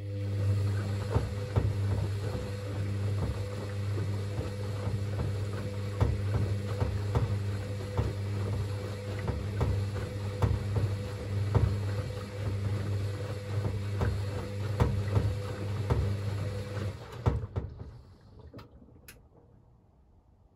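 Hoover VisionTech VTS715D21X washing machine's motor humming steadily as it turns the drum on a wash tumble, with many irregular knocks along the way; the motor stops about three-quarters of the way through, followed by a couple of faint clicks.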